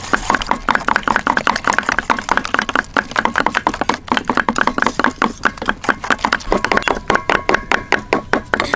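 Whisk beating eggs in a stainless steel bowl: a fast, even run of clinking strokes against the metal, with a faint ring from the bowl. Near the end, cleavers chopping shrimp on a wooden block take over with the same quick rhythm.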